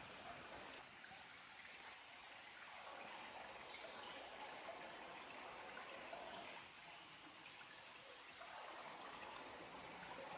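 Faint, steady trickle of running water in a cave stream.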